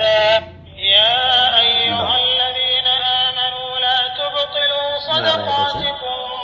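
Quran recitation played back by a digital Quran reading pen: one voice chanting a verse in long, melodic held notes, with a short break about half a second in.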